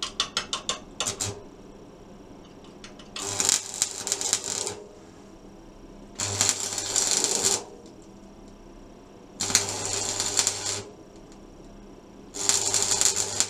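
Electric arc welding on steel: four separate bursts of arc crackle, each about a second and a half, with a low hum under each, laying short runs of weld around a patch in a stove firebox. A quick run of clicks comes at the start.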